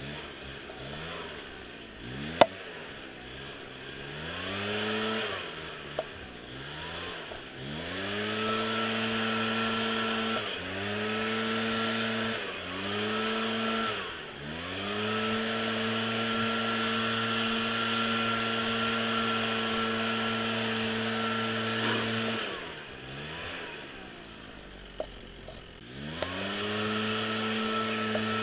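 Gas string trimmer engine revved up to full throttle and let back down several times. Its pitch falls away and climbs back smoothly to a steady high whine between pulls. A sharp click comes about two seconds in.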